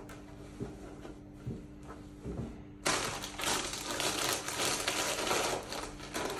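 A few soft knocks of things being handled, then, about halfway through, a much louder crinkling starts up as a plastic chip packet is handled and squeezed.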